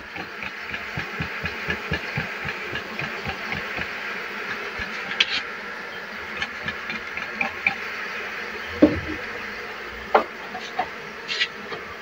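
Steady buzzing of a swarm of Asian honey bees (Apis cerana) around their opened hive during a honey harvest, with a few sharp knocks from handling the hive box.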